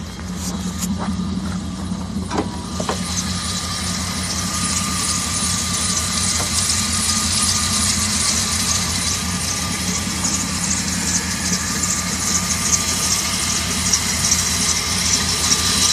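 2000 Dodge Dakota R/T's 5.9-litre V8 idling, heard close up in the open engine bay, with a steady high whine over the engine. It gets louder from about three seconds in, and a few light knocks sound in the first three seconds.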